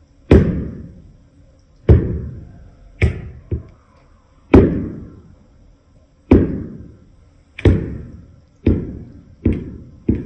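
A series of about nine sharp knocks or thumps, each ringing briefly as it dies away, coming faster toward the end.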